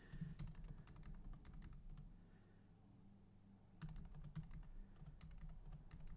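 Faint clicking of computer keyboard keys as code is typed: a run of quick keystrokes, a pause of about two seconds, then another run.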